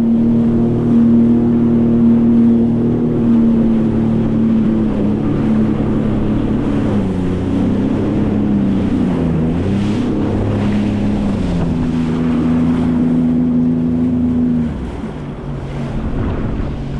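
Sea-Doo FishPro Sport 170 jet ski engine running at steady throttle, easing off and dipping in pitch around the middle, coming back up, then throttling down about fifteen seconds in. Wind buffets the microphone and water rushes past the hull.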